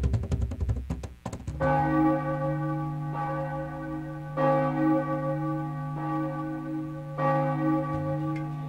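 A church bell tolls about four times, each stroke ringing on with a steady hum of overtones. Before it, rhythmic percussion music cuts off about a second in.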